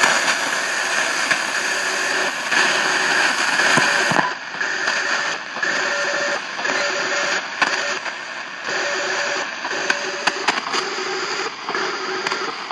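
Grundig DLX 450 shortwave receiver playing a strange digital signal near 4190–4200 kHz. There is hiss-like static at first, then from about four seconds in a choppy signal with steady low tones and many short clicks.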